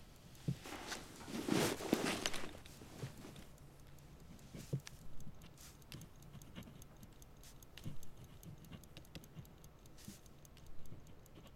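Clothing and a shoulder bag rustling as a person sits down, followed by faint scattered clicks and paper handling as papers are leafed through, over a low steady hum.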